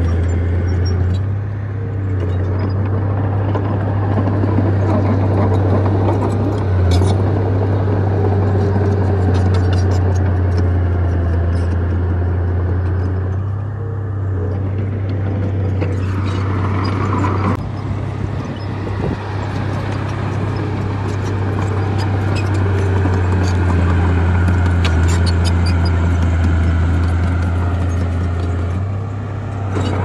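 Bulldozer's diesel engine running hard, a steady low drone that eases off briefly a few times, with scattered metallic clanks over it.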